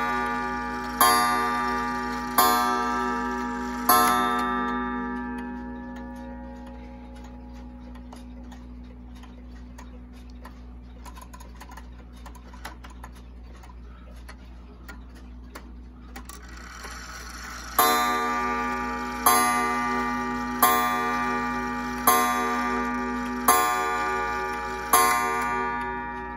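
Korean regulator wall clock striking on its coil gong: three ringing strokes about a second and a half apart, each left to die away, then a long lull with only faint ticking, then six more strokes at the same pace.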